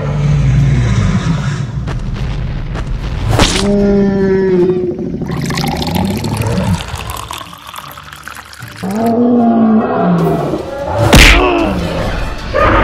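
Cartoon gorilla roars and growls, pitched calls that rise and fall, with two sharp impact hits: one about three seconds in and one near the end.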